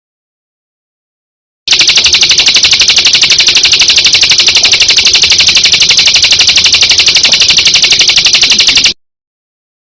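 Recorded call of a kecial kombok (cucak kombok) songbird: a loud, rapid, even rattling trill of about a dozen high notes a second. It starts suddenly after a silence, runs for about seven seconds and cuts off abruptly, as a looped tutor recording for training cage birds.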